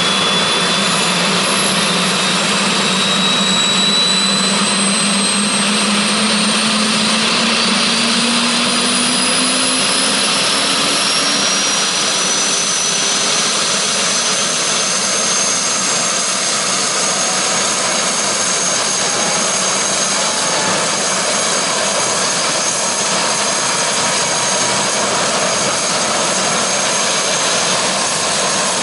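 Eurocopter AS350 helicopter turbine and main rotor running on the ground, a steady whine over rushing rotor noise. The whine rises in pitch over the first fifteen seconds or so as the engine and rotor spool up, then holds steady.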